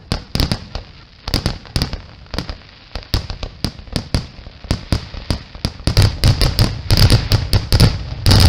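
Aerial fireworks shells bursting in rapid succession, a dense run of sharp bangs and booms that comes thicker and louder from about six seconds in, as in a display's finale.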